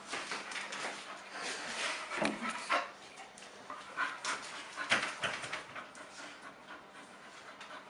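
A dog panting, with a few short scuffling knocks scattered through.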